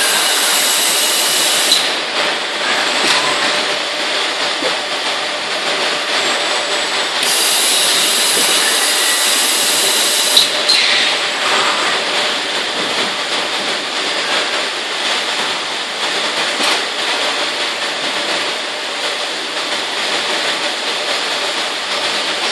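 Steady mechanical running noise of an automatic carton palletizing line: a robot palletizer and roller conveyors. A hiss is added for the first two seconds and again for about three seconds around a third of the way in.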